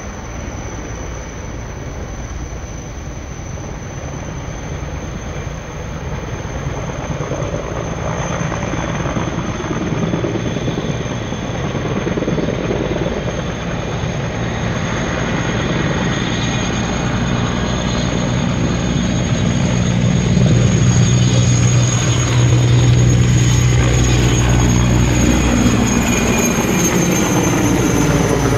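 Sikorsky S-64F Skycrane heavy-lift helicopter: a steady high turbine whine over rotor noise, growing louder as it approaches. It is loudest as it passes overhead near the end, where the whine dips slightly in pitch.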